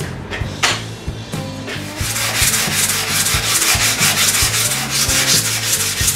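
A billet aluminium bottle opener being sanded by hand on a sheet of abrasive paper laid flat, rubbed in quick back-and-forth strokes for a steady rasping hiss. The sanding starts about two seconds in, after a few light clicks as the paper and part are set down.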